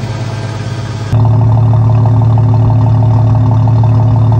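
Golen 4.6 stroker straight-six in a Jeep Cherokee idling steadily just after a cold start. About a second in it becomes suddenly louder and fuller, heard right at the exhaust tailpipe.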